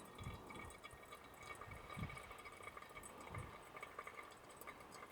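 Faint water pouring and dripping as a cup of coffee is made, with a few soft low bumps.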